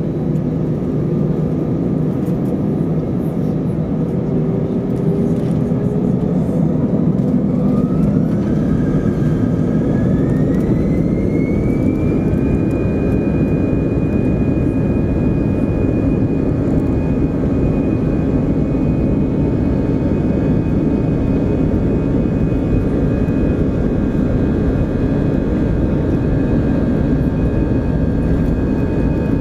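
Airbus A320 jet engines heard from inside the cabin, spooling up to takeoff thrust: a whine rises in pitch about a quarter of the way in and then holds steady over a loud, continuous rumble as the takeoff roll gets under way.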